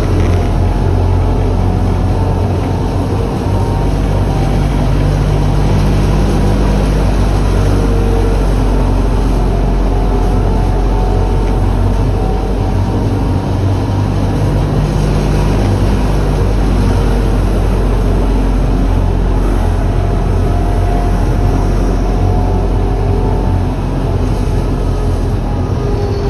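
Končar NT 2200 low-floor electric tram running steadily along the track, heard from inside the driver's cab. Its wheels rumble on the rails under a low hum, and faint whining tones drift slowly up and down in pitch.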